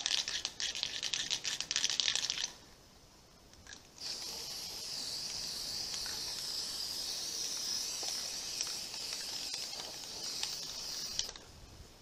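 Aerosol can of black spray paint hissing as it coats PEX tubing in a solar collector box. A sputtery spray lasts a couple of seconds, then after a short pause a long steady hiss runs for about seven seconds and stops just before the end.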